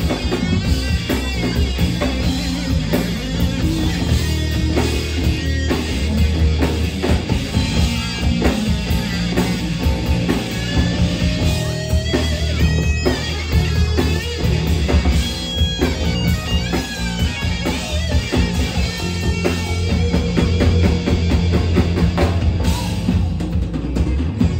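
Live rock band playing loudly: electric guitars over bass and a drum kit, a dense, continuous full-band sound.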